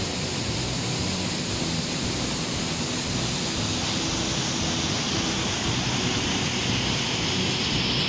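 Water rushing steadily down a rocky waterfall cascade, an even, unbroken noise of white water pouring over stone into a pool.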